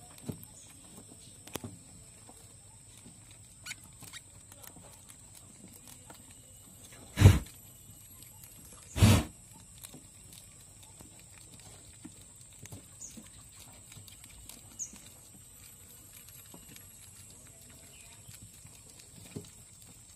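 Rats scrabbling in a wooden cage: faint scattered scratches and taps, with two loud thumps about two seconds apart near the middle.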